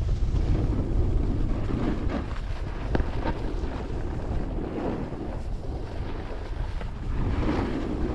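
Wind buffeting a helmet-mounted camera's microphone during a snowboard run, a steady low rumble, with the snowboard's edge scraping over packed snow in swishes on the turns, about three in all.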